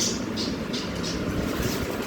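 Budgerigars giving a few short, high chirps over a steady low rumble.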